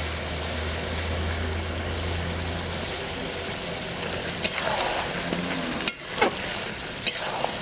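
Chicken curry sizzling steadily in a pot, with a low hum that stops about three seconds in and a few sharp clinks in the second half.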